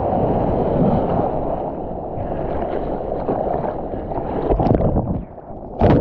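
Whitewater rushing and wind buffeting the action camera's microphone as the surfboard rides through foam. Just before the end the sound briefly drops away, then a sudden loud rush of water comes in as the camera goes under.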